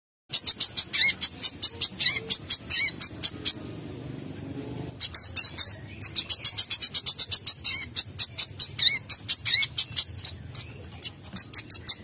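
Brown-throated sunbird (kolibri kelapa) singing: a fast run of short, sharp, high chirps, about five a second, broken by a pause of about a second and a half roughly a third of the way in.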